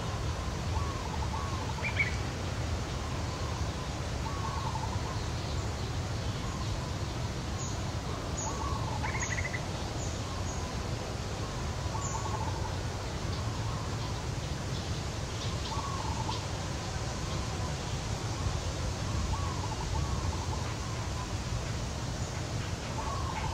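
Birds chirping in short, repeated calls every second or two over a steady low rumble.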